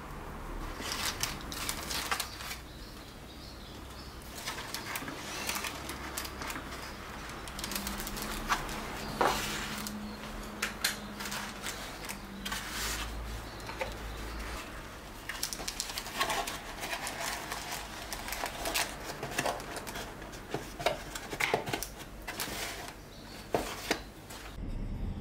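Food and molded pulp lunch boxes being handled as lunch is packed: irregular rustling with soft taps and clicks.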